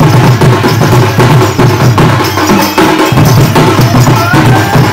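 Traditional drum band of a Chhattisgarhi village folk-dance troupe, playing loud drums in a fast, driving rhythm with sharp clicking strokes on the beat.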